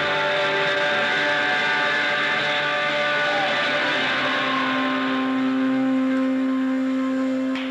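Live shoegaze band's distorted electric guitars holding a loud, steady drone of sustained notes and feedback, with no drums. A low held tone takes over about halfway, and the drone cuts off just before the end.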